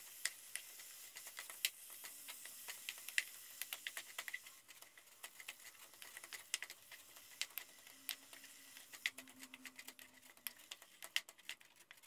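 Wooden spatula tapping and scraping against a nonstick skillet in quick, irregular clicks while breaking up and turning ground beef browning with onions, over a faint sizzle.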